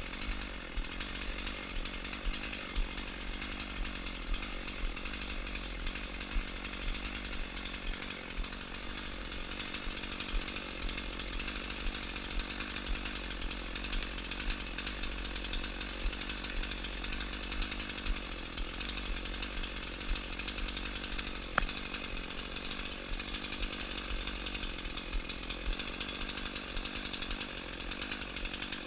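Chainsaw running steadily at an even pitch, with a single short sharp tick about two-thirds of the way through.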